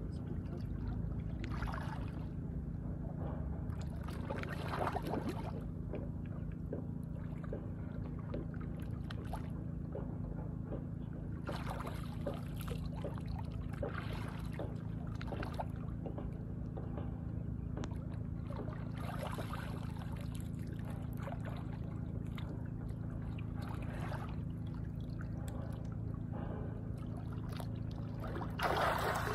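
Water splashing and sloshing in surges every couple of seconds over a steady low hum, with a louder rush of water near the end.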